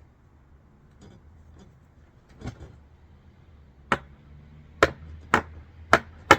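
A few faint clicks, then five sharp knocks about half a second to a second apart: hard hits on hardware while bolting a cargo box to an ATV rear rack.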